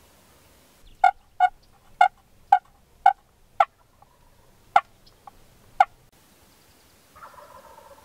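Wild turkey calling: about nine short, sharp, loud notes roughly half a second apart, then a fainter gobble from a roosted gobbler near the end.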